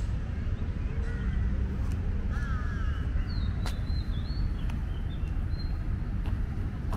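Several short bird calls, some of them wavering, over a steady low outdoor rumble.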